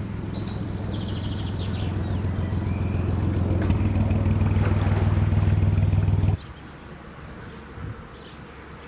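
Narrowboat engine running steadily at cruising speed, a low hum growing gradually louder, then cutting off abruptly about six seconds in to a much quieter open-air background.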